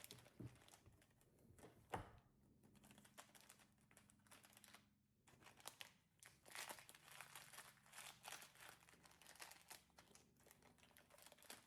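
Faint crackling and clicking of slime being squeezed and stretched in the fingers, sparse at first and busier in the second half.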